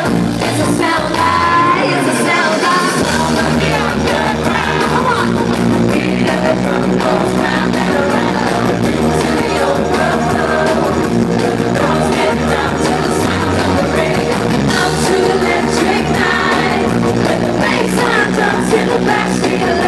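Live amplified pop-rock band music with a woman singing, loud and continuous.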